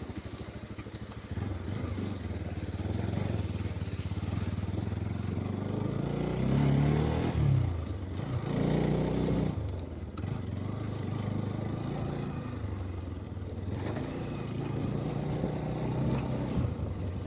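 Vehicle engine running over a rough dirt road, its revs rising and falling twice in the middle.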